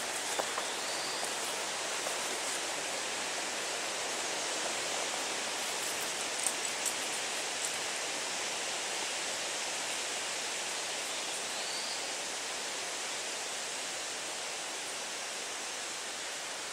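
Wind in the trees: a steady, even rush of leaves and branches, with a couple of faint short bird chirps and a few small clicks about six to seven seconds in.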